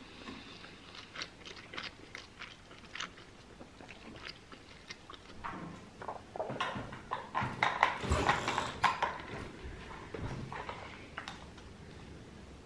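Eating sounds: short crisp clicks and crunches of biting and chewing thick-cut fries. A few seconds in they come denser and louder, a quick run of clicks and knocks.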